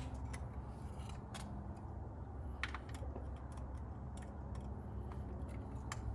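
Irregular light clicks and taps, about eight over a few seconds, from hand tools and parts being handled during spark plug removal, over a steady low hum.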